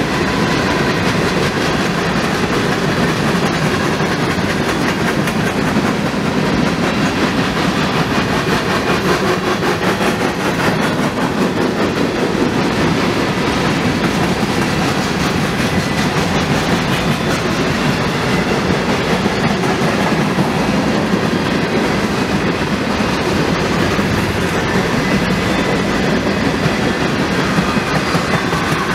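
Mixed freight train of hopper and tank cars rolling past at speed: a steady rumble of the cars with the wheels clicking over rail joints, unbroken throughout.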